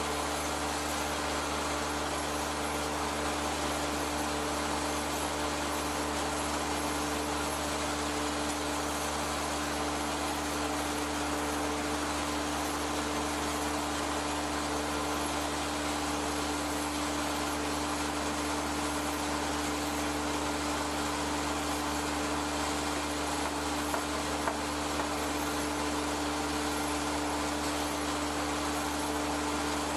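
Steady, unchanging drone of workshop machinery running, with a constant low hum and no cutting or knocking sounds.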